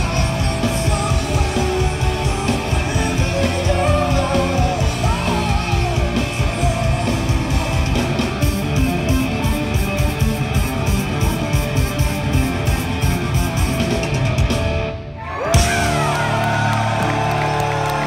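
Live rock power trio, electric guitar, electric bass and a full drum kit, playing loud with dense drumming. About fifteen seconds in the music drops out for a moment, then comes back on a sharp hit into a held, ringing chord with sliding guitar notes.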